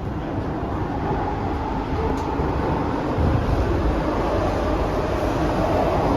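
Cabin noise of a C151A MRT train running between stations in an underground tunnel: a steady rumble and rush of wheels and running gear that grows slightly louder toward the end, with a faint click about two seconds in.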